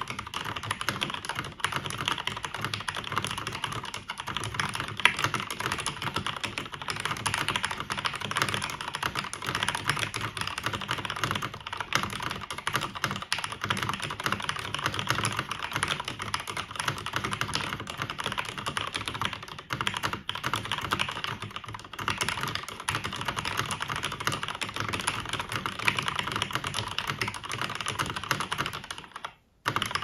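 Continuous typing on a 1998 Cherry G80-1800 mechanical keyboard, plateless-mounted, with lubed Cherry MX Black linear switches and PBT keycaps: a dense, even stream of key clacks. It breaks off briefly into silence near the end, then resumes.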